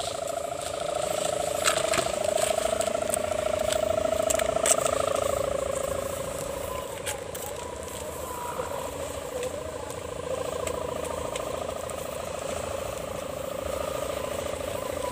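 Sendaren, the bowed hummer strung on a large tanggalan kite, droning steadily in the wind with a hum likened to a Dompeng diesel engine; its pitch wavers slightly as the wind changes.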